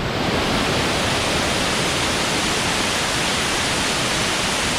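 Big waterfall: a steady, even rush of falling water.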